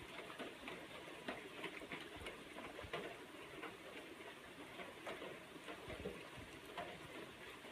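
Steady rain falling, with many irregular close drips and taps of drops landing nearby and a few soft low thumps.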